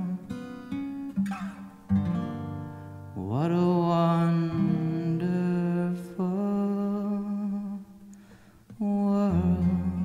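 A Taylor acoustic guitar plays chords while a male voice sings without words. About three seconds in, the voice slides up into a long held note, and it slides in again near the end.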